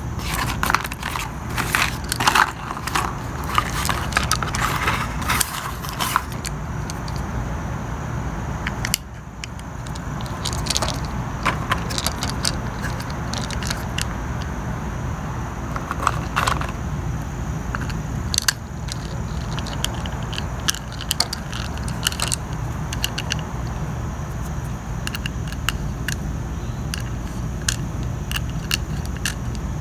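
Small metal parts clicking and scraping against each other: trimmer blades, nuts and Allen screws being handled and fitted to a bladed trimmer head with an Allen wrench. The clicks come thick in the first several seconds, then more sparsely, over a steady low hum.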